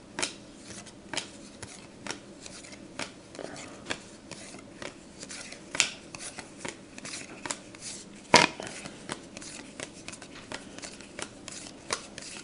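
Glossy trading cards being flipped one at a time through a hand-held stack, each card giving a short snap or flick about once a second. One snap about two-thirds of the way through is louder than the rest.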